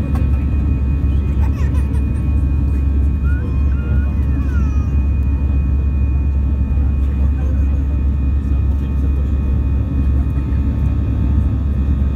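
Airliner cabin noise in flight: the engines and airflow make a steady, loud low rumble, with a few faint steady whining tones above it.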